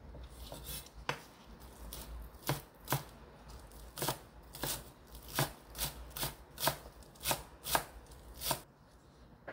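Kitchen knife slicing thin spring onions on a wooden cutting board: about a dozen separate knife strikes on the board, one every half second or so, stopping a little before the end.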